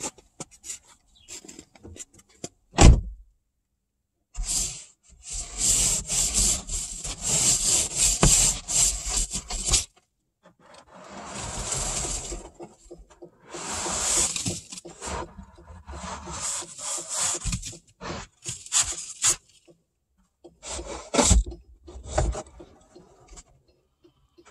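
Ice scraper scraping a thick ice coat off a car windshield in long rasping strokes with short pauses, heard from inside the car, with one sharp knock about three seconds in.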